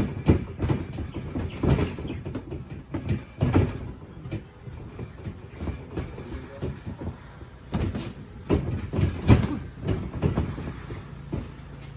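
Boxers sparring: irregular thuds of gloved punches landing and feet stepping on the ring floor, with a quick flurry of harder hits about two-thirds of the way through.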